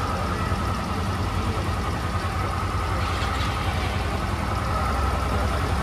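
Yamaha Axis Z 125 scooter engine running steadily, with a constant high whine over the low engine note.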